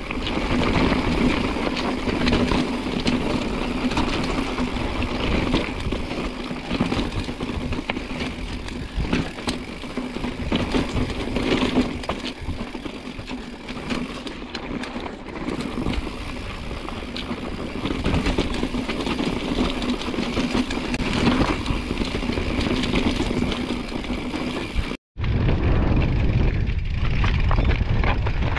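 Mountain bike ridden over a rocky trail: tyres crunching over stones and rock, with the bike rattling and knocking over the bumps. About 25 seconds in the sound breaks off for a moment, then continues as a steady low rumble of wind on the microphone.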